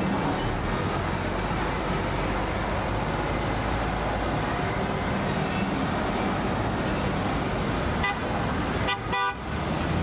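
Busy city street traffic: a steady din of passing cars and taxis, with short car-horn toots about eight and nine seconds in.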